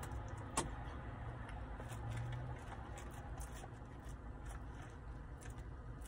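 Quiet eating sounds: chewing, and a plastic fork scraping and tapping among fries in a paper fry boat, with scattered small clicks and one sharp click about half a second in. Under it runs a steady low hum in the car.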